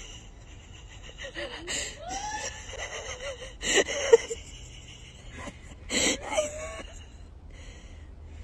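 A woman's short gasps, squeals and nervous laughs as she keeps her balance, loudest about four and six seconds in.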